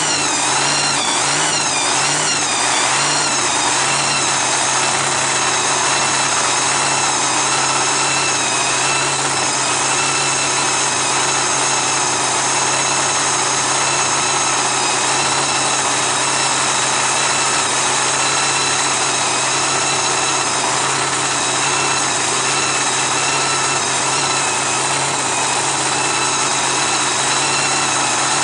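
Supercharged drag-racing engine running. Its revs rise and fall several times in the first few seconds, then it settles into a steady idle.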